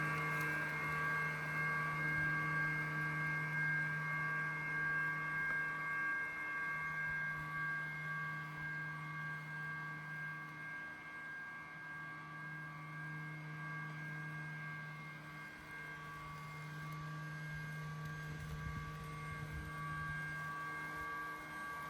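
Lymow One robot lawn mower's electric motors running with a steady hum and a thin whine above it, swelling and fading slightly as it mows back and forth.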